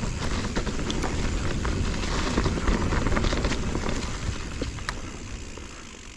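Mountain bike rolling over rocky singletrack: tyres crunching on dirt and stones, sharp rattling clicks from the bike, and wind on the microphone. It grows quieter over the last second or two.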